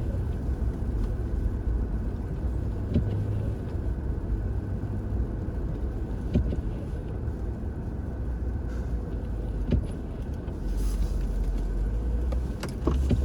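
A car being driven in snow, its engine and tyres making a steady low rumble, with a few faint knocks.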